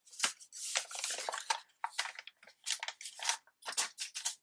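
Sheets of paper being handled and cut on a paper trimmer: a string of short, crisp rustles and scrapes.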